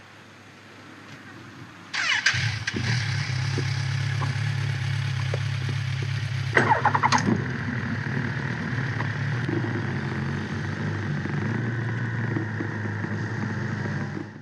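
Suzuki GSX 750 motorcycle's inline-four engine starting about two seconds in, then idling steadily, with a short blip of revs around the middle.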